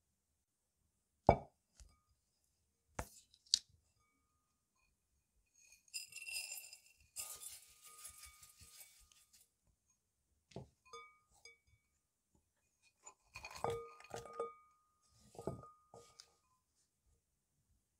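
Glass bowls knocking as they are set down on a hard countertop, then rolled oats poured from one glass bowl into another with a dry rustling hiss for a few seconds. Later, clinks of glass and walnut halves dropping into the oats, with a short ring from the glass bowl.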